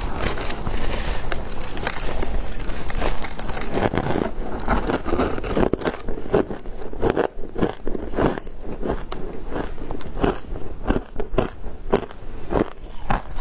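Biting into and chewing a mouthful of shaved ice: a dense crackling as the large bite is taken, then from about four seconds in, separate crisp crunches several times a second as the ice is chewed.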